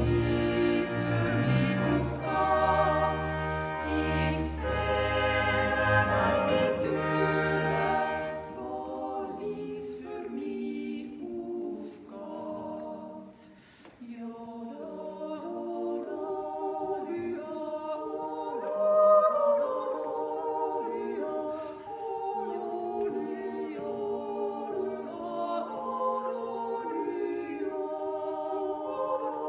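Three women's voices singing a Swiss yodel song in close harmony, backed at first by double bass and Schwyzerörgeli (small Swiss button accordion). About eight seconds in the accompaniment falls away and the voices carry on alone.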